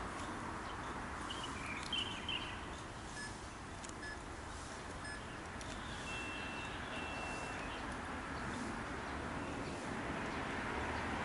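Outdoor city-park ambience: a steady hum of distant traffic, with a few short bird chirps about two seconds in and some brief high whistled notes around the middle.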